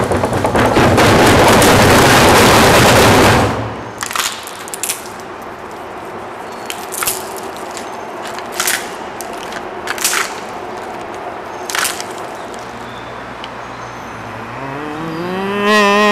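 Foley sound effects: a loud rushing noise for about three and a half seconds, then half a dozen sharp separate knocks spread over the next eight seconds. Near the end comes a rising, then held, pitched call, a cow's moo.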